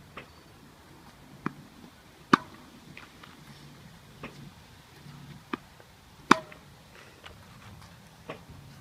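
Tennis balls struck with a Wilson Pro Staff RF97 racquet in a rally: two loud, sharp hits, one about two and a half seconds in and one just past six seconds, with fainter knocks of the ball in between.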